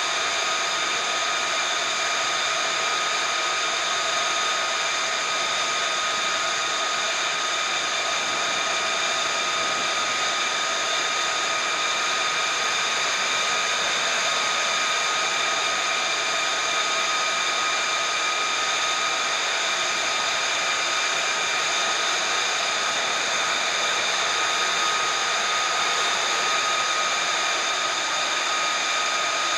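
F-35B's jet engine running at ground idle during hot loading: a steady rushing noise with a steady high-pitched whine, unchanging throughout.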